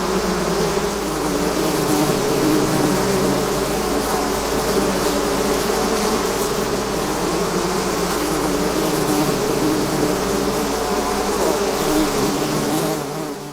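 A swarm of bees buzzing: a dense, steady drone of many wingbeats at slightly different, wavering pitches, which begins to fade out at the very end.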